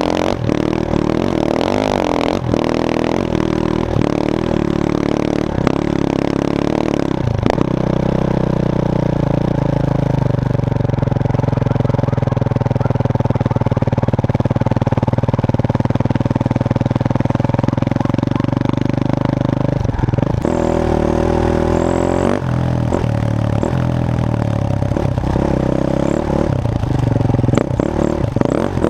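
Enduro dirt-bike engine running under load, heard close from a camera on the bike, its revs rising and falling with the throttle and gear changes, with a few sharp knocks along the way.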